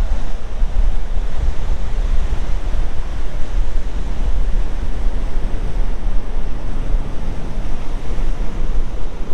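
Ocean surf washing onto a beach as a steady rushing noise, with wind buffeting the microphone as a low, gusty rumble.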